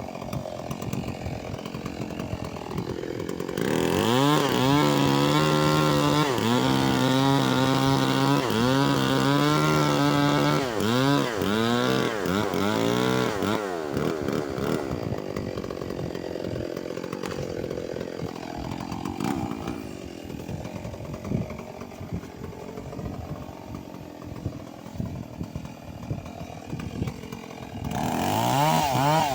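Stihl MS 381 two-stroke chainsaw running hard and cutting through a fallen mahogany trunk, its engine pitch sagging under load and picking up again. It drops to a lower, quieter running in the middle, then revs up loudly again near the end.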